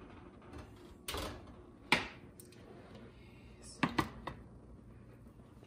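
A metal baking sheet is pulled from the oven and set down on a glass-top electric stove: a few sharp clanks and clicks, the loudest just before two seconds in, then two quick clicks about four seconds in.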